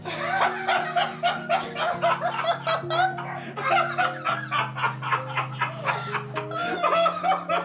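Someone laughing hard and continuously in quick, rapid pulses, over background music with long sustained low notes.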